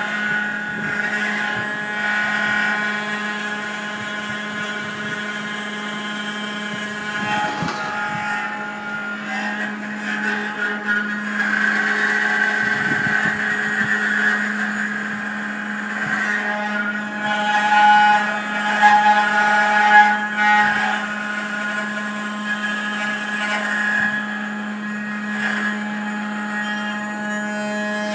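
N-Gravetek Y4S CNC desktop engraving machine running a cutting program, its spindle at 12,000 rpm giving a steady hum with a stack of higher whining tones above it. The cutting noise swells for a few seconds about halfway through and again later on.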